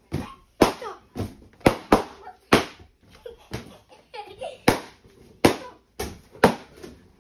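Latex party balloons popping one after another, about a dozen sharp bangs at irregular intervals, as children burst them by pressing and stomping on them.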